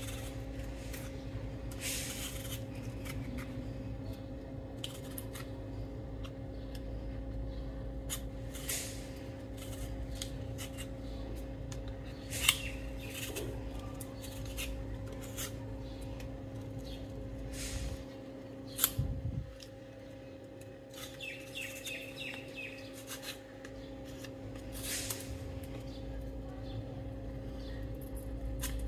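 Y-shaped vegetable peeler with a steel blade scraping the skin off a raw potato in repeated short strokes. A steady low electrical hum runs underneath and cuts out about two-thirds of the way in, with two sharp knocks in the middle and a few brief bird chirps after them.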